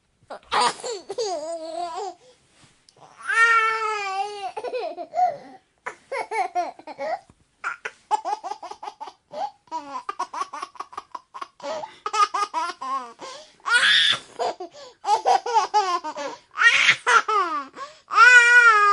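A baby boy laughing and giggling in bouts, mixed with babbling. There are high-pitched squealing laughs that rise and fall, and in the middle rapid chains of short giggles.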